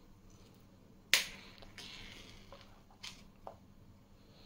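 A sharp click about a second in, then rustling and two lighter clicks, from handling the stick magazine of an Umarex Beretta M9A3 CO2 air pistol while it is loaded with steel BBs.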